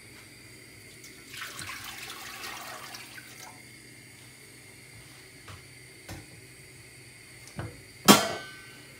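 Water poured from a plastic jug into a stockpot, splashing for about two seconds. A few light knocks follow, then one sharp, loud knock with a short ring near the end.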